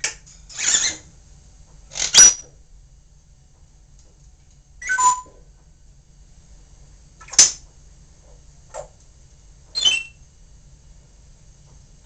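African grey parrot making short, scattered calls, sharp clicks and squawks with a few brief whistled notes that drop in pitch, about seven in all at irregular gaps of one to three seconds.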